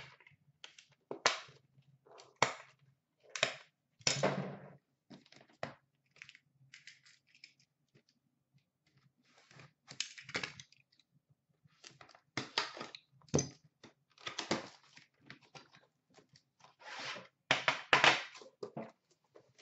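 Hands unpacking a box of Upper Deck The Cup hockey cards: irregular crinkling, tearing and scraping of the cardboard box and wrapper as the tin inside is taken out and set on the glass counter.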